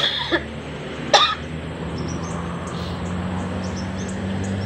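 A person coughing twice, about a second apart, over a steady low hum.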